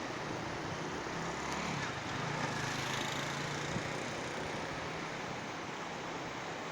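Steady rushing of a river in flood after heavy rain. A low hum swells and fades in the middle.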